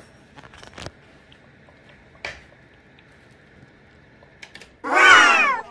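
Munchkin kitten eating wet cat food from a plate: faint, scattered little clicks and smacks of chewing. About five seconds in, a brief loud sound slides down in pitch.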